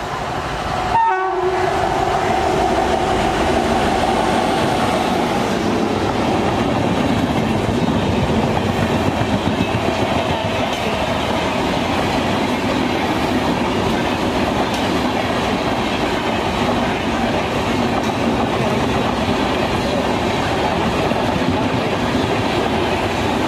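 Express train with an Indian Railways WAP-7 electric locomotive passing at speed: the locomotive's horn sounds about a second in and holds for several seconds, then gives way to the steady rumble and clickety-clack of passenger coaches running by.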